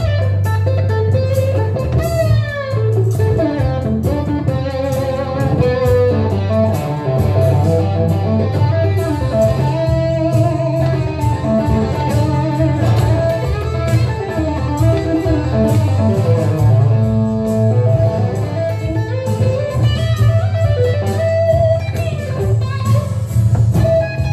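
Telecaster-style electric guitar playing improvised blues lead lines with string bends, over a steady low bass backing.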